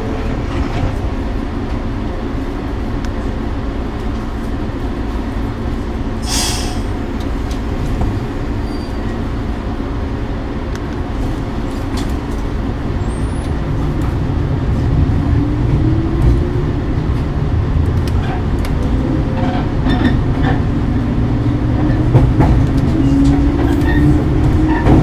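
Shinano Railway 115 series electric train running, heard from the driver's cab, with a brief hiss about six seconds in. From about halfway the traction motors' whine rises in pitch twice and the running noise grows louder as the train picks up speed.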